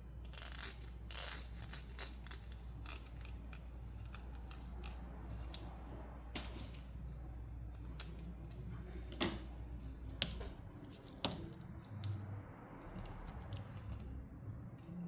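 Hands unboxing a plastic toy playset: an irregular string of light clicks, taps and snips from packaging and small plastic pieces. A low hum underneath stops about two-thirds of the way through.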